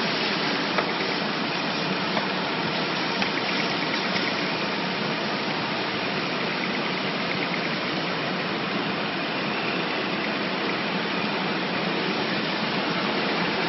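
Chicken manure granulating line running: rotary drum, electric gear motor and belt conveyors giving a steady, even mechanical noise, with a few light clicks in the first few seconds.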